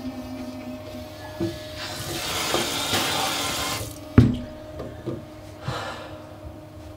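An electric toothbrush buzzes steadily for about a second, then a tap runs into a bathroom sink for about two seconds. A sharp knock follows, then a few small knocks.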